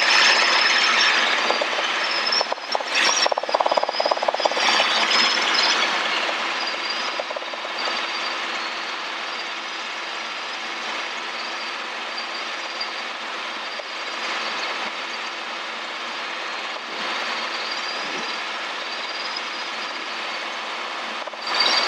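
Robinson R22 Beta II helicopter heard from inside the cabin: the steady drone of its rotor and four-cylinder Lycoming piston engine, with a thin wavering high whine over it. It is a little louder for the first few seconds, then settles, during a descent on approach with the collective lowered.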